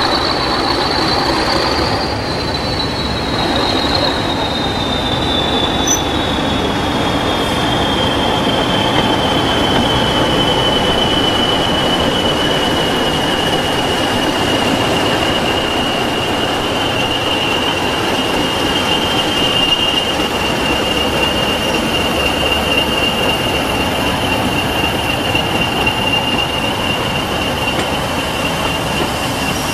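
English Electric Class 40 diesel locomotive running past hauling coaches, its 16-cylinder turbocharged engine giving the high turbocharger whistle the class is known for. The whistle rises a little at first, then sinks slowly in pitch as the locomotive draws away, over a steady engine and wheel rumble.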